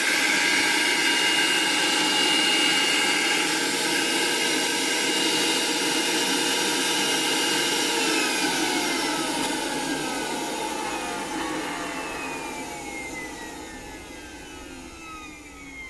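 Vacuum motor of a dental vacuum-forming (thermoforming) machine running steadily while it draws the softened splint sheet down over the model, then switched off about eight seconds in and winding down with a falling whine.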